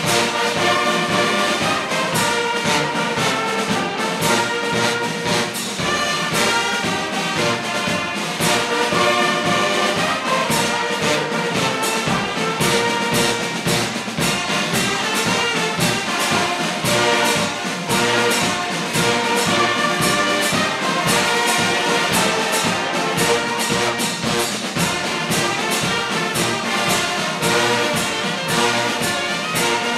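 A large brass band of trumpets and other brass plays a march in full harmony, with a steady beat.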